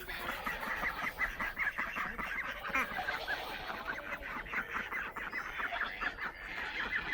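A flock of farm poultry, ducks and geese, calling steadily: many short, overlapping honks and quacks.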